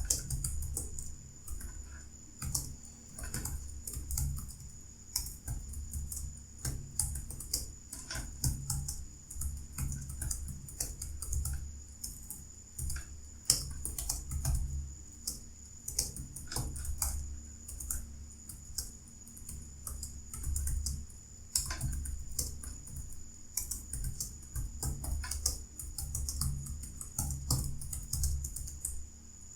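Fast, continuous typing on a computer keyboard, a dense irregular stream of key clicks during a timed typing test. A faint steady high-pitched tone runs underneath.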